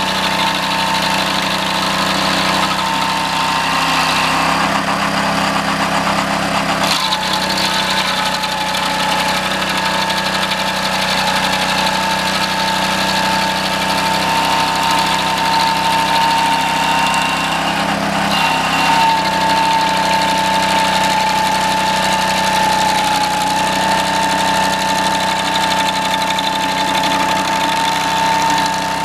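Single-cylinder 6.5 hp Honda engine of a homemade stump grinder running steadily, driving the cutting wheel through a 6:1 gear reduction. Its pitch sags slightly about four seconds in and again past the halfway mark.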